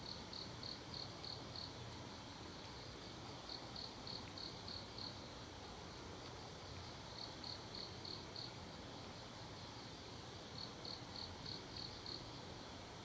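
A cricket chirping in repeated trills, each a run of about six to eight quick pulses lasting about a second and a half, with pauses of about two seconds between, four times over. A steady low background hum lies beneath it.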